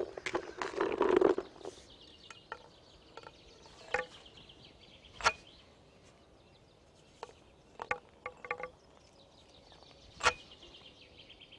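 Boilies being thrown with a metal throwing stick: a brief rustle at the start, then a scattering of sharp clicks and knocks, the loudest about five and ten seconds in. Faint birdsong runs behind.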